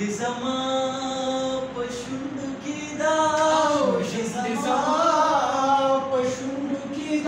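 A man singing a Pashto tappa without instruments, in long held notes that bend and waver, with ornamented turns in the middle.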